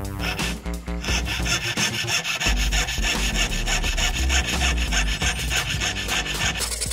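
Jeweler's saw blade cutting through a small piece of silver sheet, with a run of rapid rasping strokes. Background music with a low bass line plays underneath.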